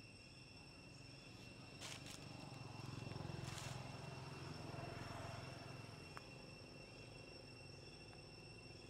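Faint, steady chirring of insects, with a couple of brief rustling noises about two and three and a half seconds in.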